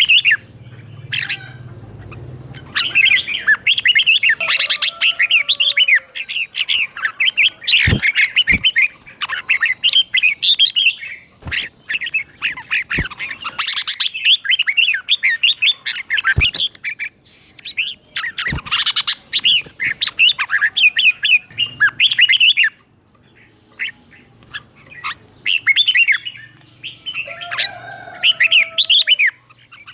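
Red-whiskered bulbul singing, with runs of quick, bubbly warbled phrases and short pauses between them. A few sharp clicks fall among the phrases.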